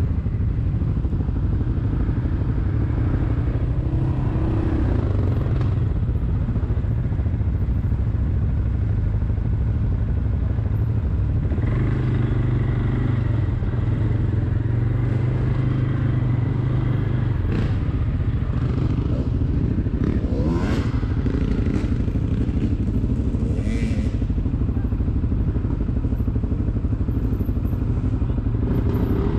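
Quad bike engine running steadily under way on a rough dirt track, pulling harder for a few seconds near the middle. A few knocks and rattles come in the second half.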